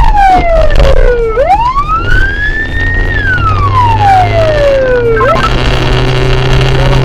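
Police car siren wailing: one slow rise and fall in pitch, then a couple of quick chirps a little past five seconds in before it cuts off, over the steady low drone of a car engine.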